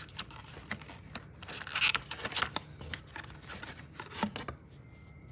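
Rustling and sharp clicking of things being handled, which stops about four and a half seconds in.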